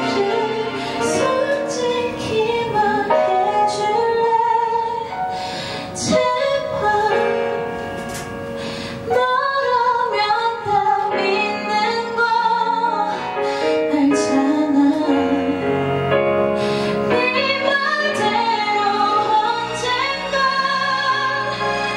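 A woman singing live into a handheld microphone over instrumental accompaniment, holding long notes with a wavering vibrato.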